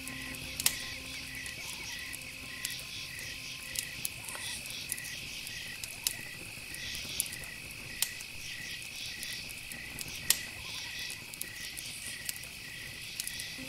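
Insects chirping in an even pulse of about two chirps a second over a continuous high trill, with sharp clicks at irregular intervals.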